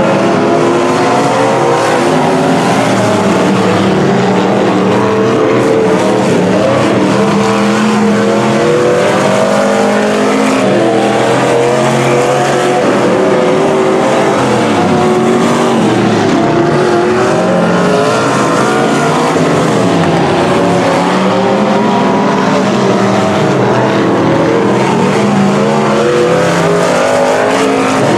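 Several Pro Stock dirt-track stock cars racing at once, their engines revving up and easing off through the turns, with several engine notes overlapping and rising and falling.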